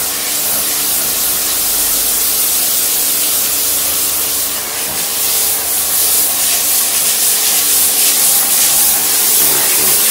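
Kärcher electric pressure washer spraying a high-pressure jet of water onto a garden chair: a steady, loud hiss with the machine's motor humming steadily underneath.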